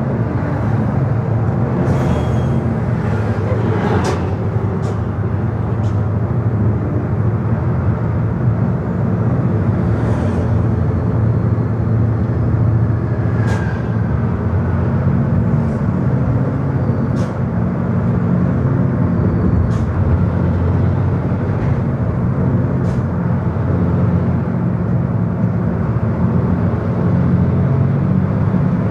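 Steady drone of a vehicle's engine and tyre noise heard from inside the cabin while driving along a highway, with a few short clicks and knocks scattered through it.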